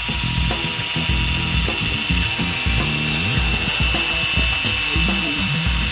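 A power tool running with a steady high-pitched whine, of the kind an angle grinder or drill makes, over background music with a steady beat.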